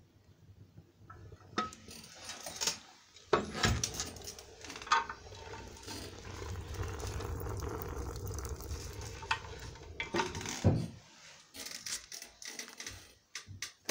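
Metal clanks and clicks from a coal boiler's steel doors and latch handles being worked, with the sharpest clanks about three and five seconds in. A steady low rumble runs under them for several seconds in the middle.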